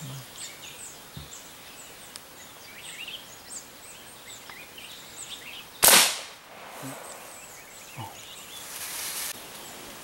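A single rifle shot about six seconds in: one sharp crack with a short ringing tail. Small birds chirp faintly before it.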